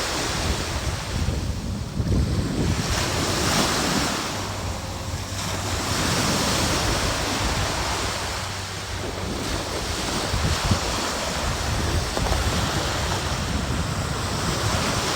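Ocean surf breaking and washing up the beach in swells every few seconds, with wind buffeting the microphone.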